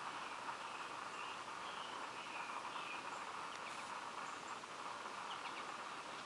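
Steady outdoor background hiss with a few faint, short bird chirps in the first half and a couple of tiny clicks later.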